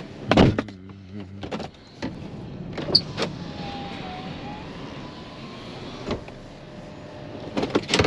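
A thump, then about a second of steady low mechanical hum, followed by scattered clicks and knocks of things being handled, with more knocks near the end.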